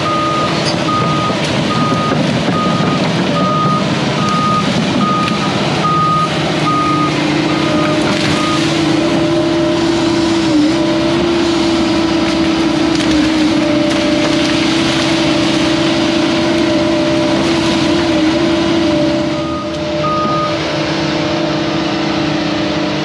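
Hyundai HX210AL excavator's diesel engine running steadily. Its travel alarm beeps about one and a half times a second for the first eight seconds and again briefly near the end, as the tracks move. The engine note grows stronger about six seconds in.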